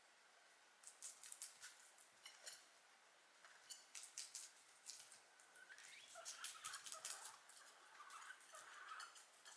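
Guinea pigs chewing, with quick crisp crunching clicks. From about six seconds in, a guinea pig gives short warbling squeaks.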